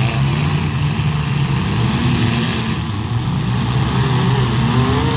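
The engines of several demolition-derby compact cars running together in one dense, steady drone, with revs rising and falling now and then.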